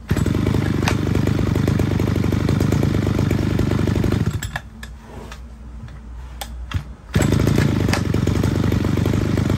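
Mitsubishi TL33 33cc two-stroke brush cutter engine running under throttle, dropping to a quiet, very low idle about four seconds in, then revved up again about seven seconds in.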